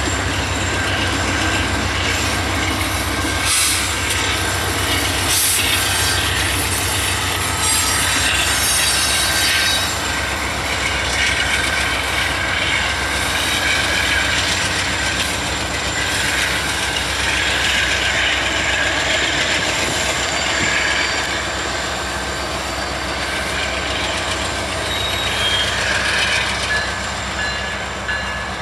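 Union Pacific diesel freight locomotive and train rolling past with a steady diesel rumble and wheel-on-rail noise. Thin squealing tones from the wheels come and go, more often in the second half.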